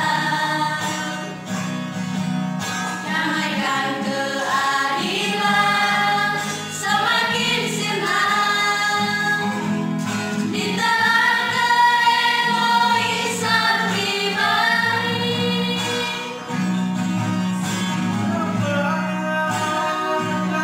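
A mixed youth choir of young men and women singing a hymn in parts, over a steady low accompanying note.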